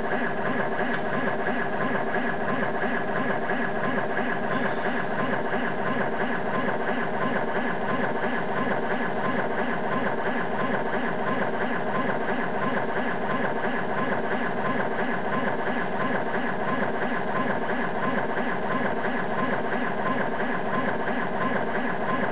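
Stepper-driven Z axis of a DIY CNC mill jogging back and forth in short moves: a steady machine hum with several held tones and a fine, even pulsing through it.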